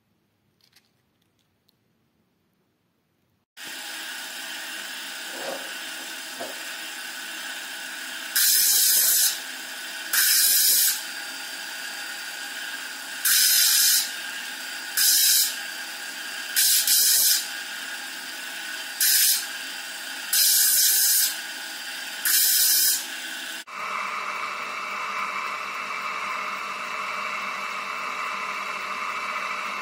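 Lapidary machine running with a steady hum as a chrysoprase stone is pressed again and again against its water-cooled wheel, about eight times. Each contact gives a loud grinding hiss of about a second, the stone being shaped into a cabochon. It starts after a few seconds of near silence, and near the end the sound switches abruptly to a different, steady hiss.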